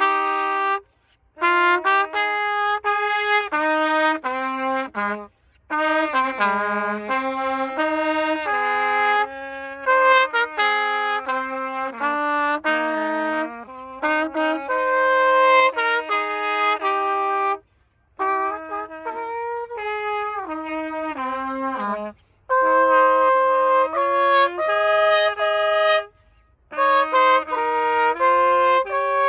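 A live duet of the national anthem on wind instruments, played in melodic phrases with short breaks between them.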